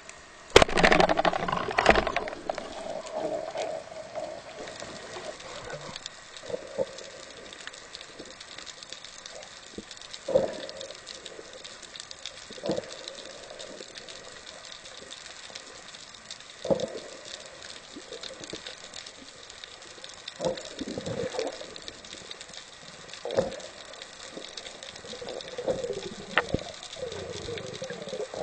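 Underwater, a speargun fires with a sharp click about half a second in, followed by a loud clattering rush to about two seconds. Then a steady watery hiss, broken every few seconds by short, muffled knocks.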